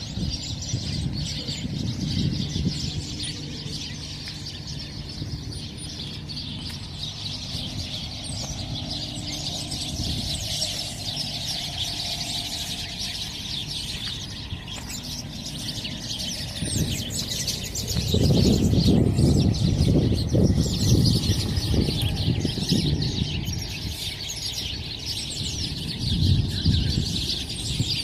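Birds chirping continuously in a dense chorus. A louder low rumble comes in about two thirds of the way through for a few seconds, and again briefly near the end.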